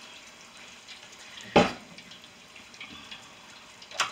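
Breaded mashed potato balls sizzling in hot oil in an electric deep fryer, a steady hiss. A sharp knock about a second and a half in, and a smaller click near the end.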